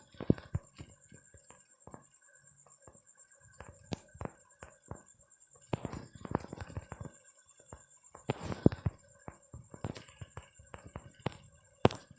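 Irregular clicks and knocks coming in clusters, over a faint steady high whine.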